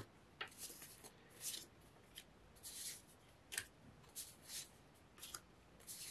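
Small paper die-cut cards rustling and sliding against each other as they are leafed through by hand: a string of short, faint rustles with gaps between them.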